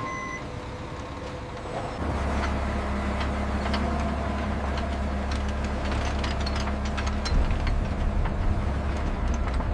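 Heavy sawmill log-handling machinery running with a steady low drone that steps up louder about two seconds in, with scattered knocks and clanks throughout.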